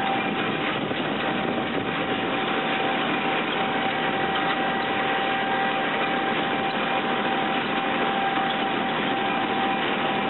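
John Deere tractor engine running at a steady speed, with a thin steady whine over the engine noise.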